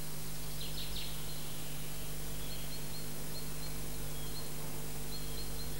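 Steady low hum under faint, short high-pitched chirps. There is a little cluster of chirps just under a second in, then single chirps every half second or so.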